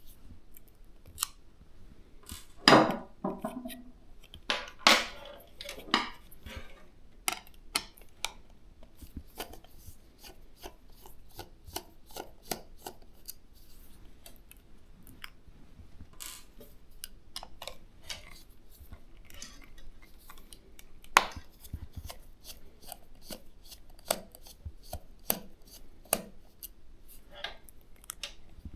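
Hands fitting a 360 mm AIO liquid cooler into a PC case: a run of small clicks and taps of plastic and metal parts, with a few louder knocks, three in the first six seconds and one past the middle.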